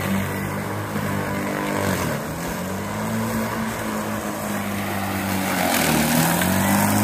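Electric lawn mower running as it is pushed through tall, thick grass. Its motor hum sags in pitch about two seconds in and again near six seconds, then climbs back: the blade slowing under the load of the dense grass and recovering.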